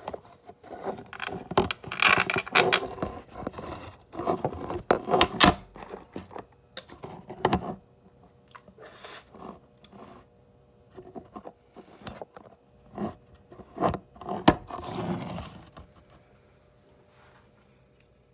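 Rubber balloon being worked off and stretched over the mouth of a container of fermenting mead: scraping, rubbing and clicking handling noises, busy for the first half and sparser later, with one more stretch of rubbing near the end.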